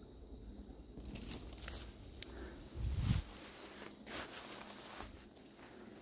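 Scattered soft crunching and rustling from a hiker's footsteps and brushing past reeds, with a low muffled thump on the microphone about three seconds in.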